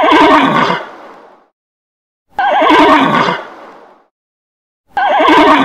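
Horse whinnying: the same quavering neigh three times, about two and a half seconds apart, each starting sharply and trailing off, with silence between.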